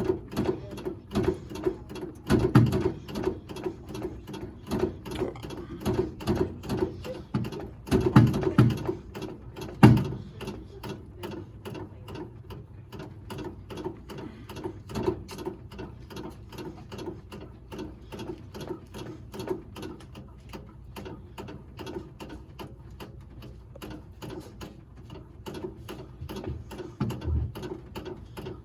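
Brake pedal and linkage of a 1965 Cushman Truckster being pumped over and over to prime a dry brake system after the master cylinder was refilled: a steady run of mechanical clicks, with a few louder knocks in the first ten seconds.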